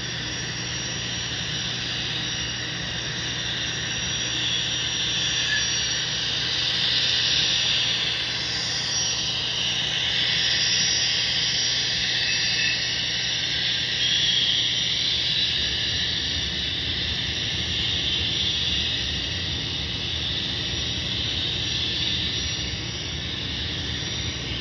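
Model train running: a model Union Pacific gas turbine locomotive pulling reefer cars along the layout track. It gives a steady rushing hiss over a low hum, louder through the middle as the cars roll past close by.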